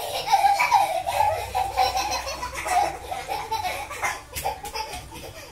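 A child laughing and calling out in a high voice, with a couple of sharp clicks a little over four seconds in.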